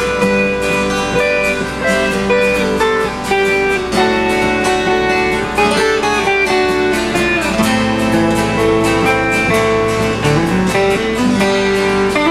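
An acoustic guitar strummed and an electric guitar picked through a small amplifier, playing a country-style tune together with a steady run of quick picked notes.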